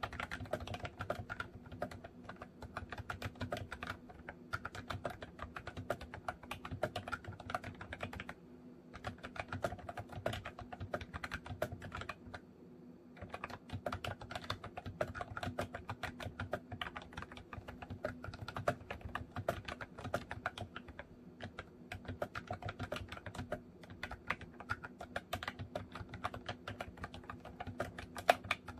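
Continuous typing on a MOFii Retro Style Candy keyboard with round retro keycaps: a fast run of key clicks, broken by two short pauses about a third and nearly halfway through.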